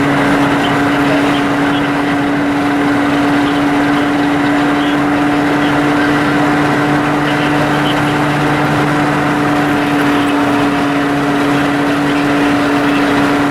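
Steady drone of a vehicle engine holding one pitch, over a constant hiss of road or wind noise.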